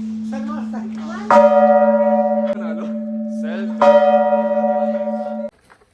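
A bell struck twice, about two and a half seconds apart, each strike ringing on with a bright cluster of overtones over a steady low hum, with voices in between; the ringing and the hum stop abruptly near the end.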